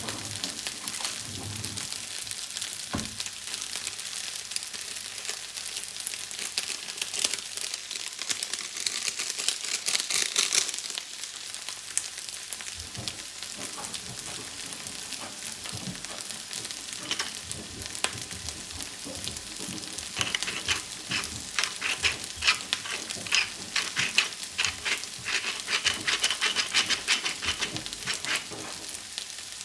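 Shrimp fried rice sizzling in a hot pan, stirred and tossed with a spatula that clicks and scrapes against the pan. The strokes come thick and fast in the last third.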